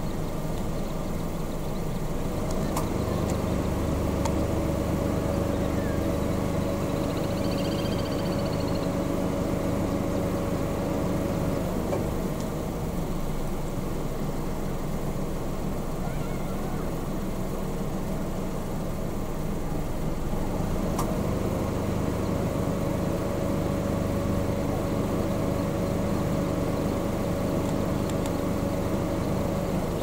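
Steady engine hum with a low rumble, heard in two long stretches of about nine seconds each, over constant outdoor background noise. A brief high-pitched call sounds about eight seconds in.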